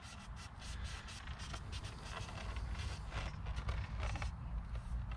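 Wind noise on the microphone, with scattered rustling and light clicks.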